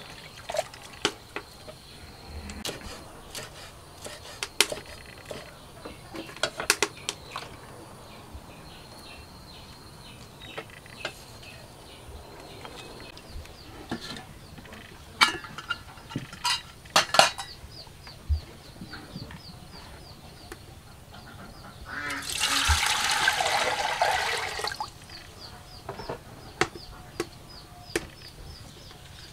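Scattered clinks and knocks of an aluminium pot, its lid and wet hands in a basin of water, then, about three-quarters of the way through, some three seconds of water being poured into the aluminium pot. A faint rapid chirping repeats in the background through the second half.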